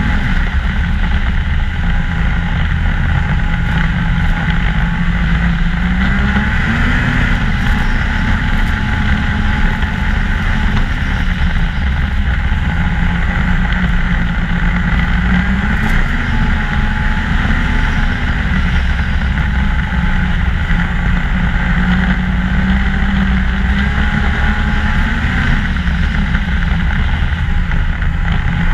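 Ski-Doo MXZ 600 snowmobile engine running steadily while riding a trail, its pitch rising briefly a few times as the throttle is eased on and off.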